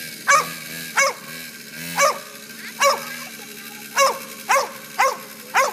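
A dog barking repeatedly, about eight short sharp barks at an uneven pace, a couple of them closer together near the end.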